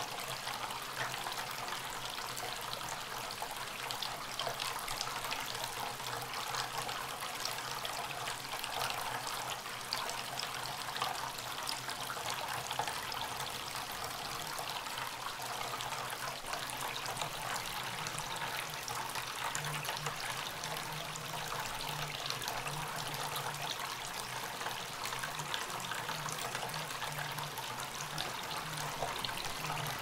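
Small bamboo tabletop fountain running: a steady trickle of water falls from a bamboo spout onto pebbles in a bowl. A low hum runs underneath.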